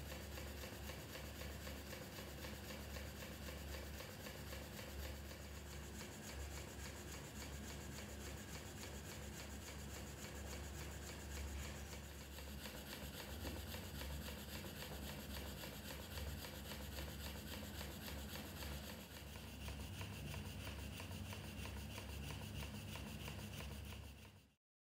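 Stuart D10 twin-cylinder vertical model steam engine running fast, its rapid exhaust beats merging into a steady rasping chuff over a low hum. The sound cuts off near the end.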